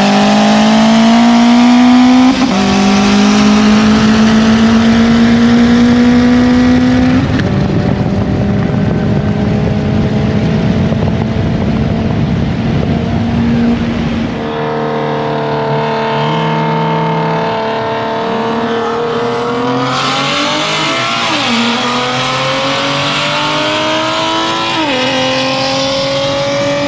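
Modified Kia Stinger with its muffler deleted, accelerating hard through the gears. The engine pitch climbs and falls back at each upshift, about 2 s and 7 s in, then rushes at speed. Later it pulls again, with more shifts near 21 s and 25 s.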